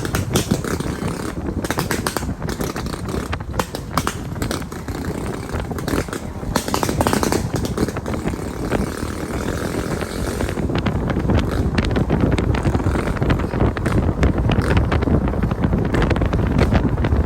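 Motorcycle on the move: a steady engine rumble under wind buffeting and crackling on the microphone, getting louder about halfway through.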